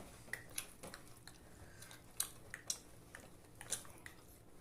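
Faint close-up eating sounds: chewing and mouth noises, with a scattering of small irregular clicks and smacks.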